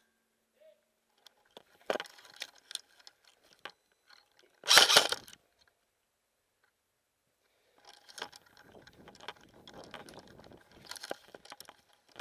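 Snow crunching and gear rattling as a player moves low through deep snow, with a loud, sudden burst of noise lasting under a second about five seconds in.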